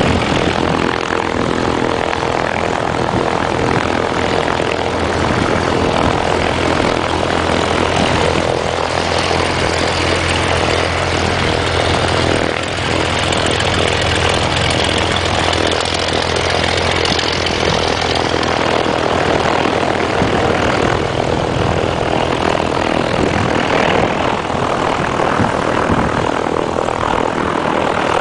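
Piston engine of a light propeller aircraft running steadily, a continuous low drone under a broad rushing noise.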